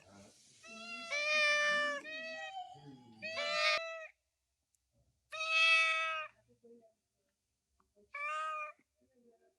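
A domestic cat meowing: four separate meows with pauses between them, the first long and drawn out, the last short.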